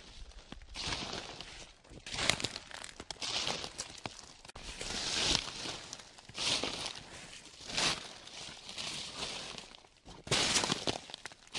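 Footsteps crunching through a thick layer of dry fallen leaves at a slow walking pace, about one crisp rustling crunch a second.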